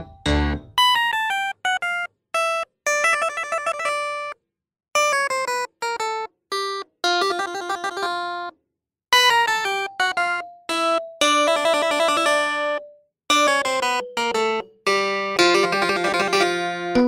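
Instrumental background music: a melody of separate ringing notes in short phrases, broken by brief moments of silence.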